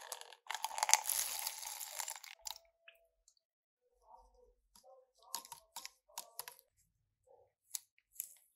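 Kerosene poured in a thin stream into a clear plastic cup: a noisy splashing for about two seconds. It is followed by scattered light clicks and taps of handling the cup and a plastic syringe.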